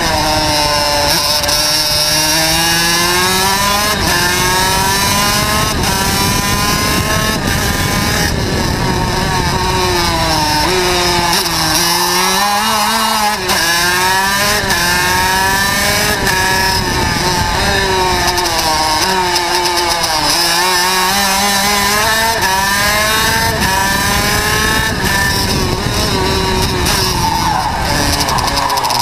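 Racing kart's two-stroke engine at full lap pace: its pitch climbs on each straight and drops sharply under braking into the corners, about five times over, over a steady rushing hiss of wind.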